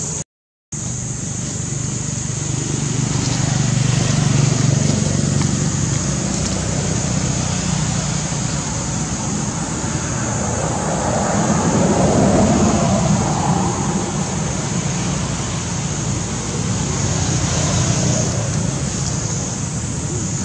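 Steady outdoor background noise: a low rumble that swells about halfway through, under a constant high-pitched hiss. The sound cuts out completely for a moment right at the start.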